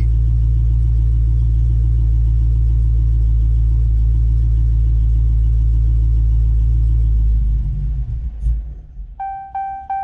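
2019 Dodge Challenger Hellcat's supercharged 6.2-litre Hemi V8 idling loudly, then stumbling and dying about seven and a half seconds in as its fuel pump is cut remotely by the tracking and disabling system. Just after the engine dies, an electronic chime starts repeating about three times a second.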